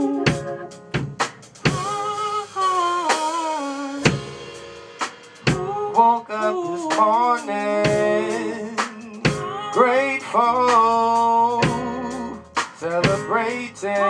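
A live soul band rehearsing: sung vocal lines over electric bass and a drum kit, with sharp snare and kick hits punctuating the groove.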